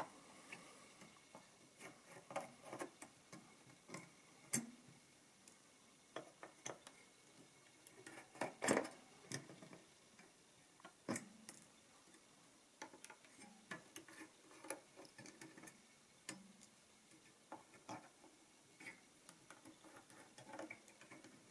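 Small screwdriver taking the screws out of the Addometer adding machine's metal top plate: faint, irregular clicks and scrapes of metal on metal, the loudest about nine seconds in.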